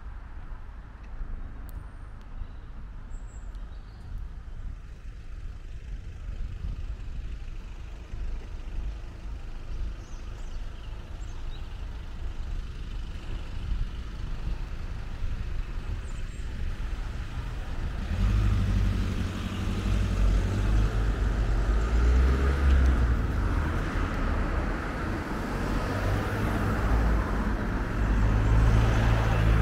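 Road traffic: a motor vehicle's engine rumbling with tyre noise, a low steady hum that grows clearly louder about two thirds of the way through.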